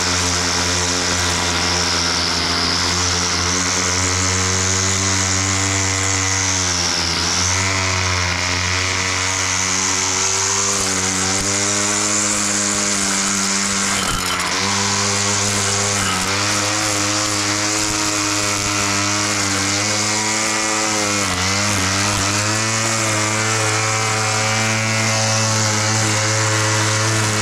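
Small petrol engine of a grass-cutting machine running at high speed, with a high whirring hiss from the cutting. Its pitch sags briefly three times, about every seven seconds, as it bogs under load in the grass.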